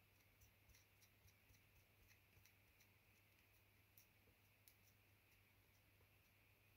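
Near silence: room tone with faint, evenly spaced ticks about three times a second.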